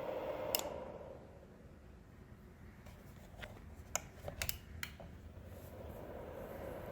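Small 500 W PTC electric space heater: a click about half a second in, then its fan hum winds down and stops. A few sharp clicks follow between about three and five seconds in, and the fan hum gradually builds back up near the end.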